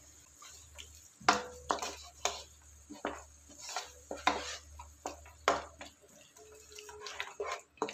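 Wooden spatula stirring a thick masala in a frying pan, scraping and knocking against the pan in about a dozen irregular strokes.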